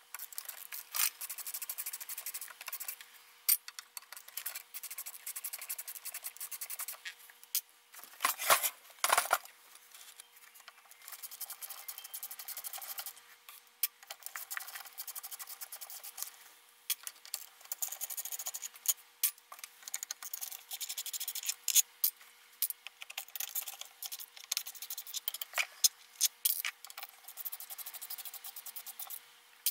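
A Phillips screwdriver bit grinding and clicking in the steel screws of a Makita 1800 electric planer's aluminium handle as they are turned. The metal-on-metal scraping comes and goes in uneven strokes, with a louder burst about eight seconds in.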